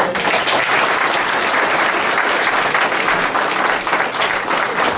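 Audience applauding: many people clapping together.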